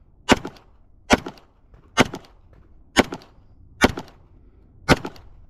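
Glock 17 Gen 4 9mm pistol fired six times in slow, steady fire, about one shot a second, each shot followed a moment later by a fainter crack.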